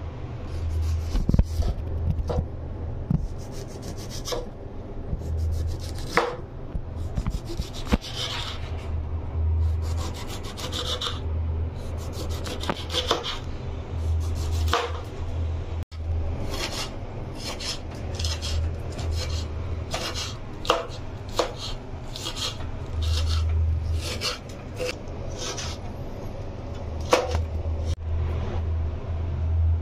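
Kitchen knife slicing through a lemon and striking a wooden cutting board, repeated strokes that come faster in the second half, with a low steady hum underneath.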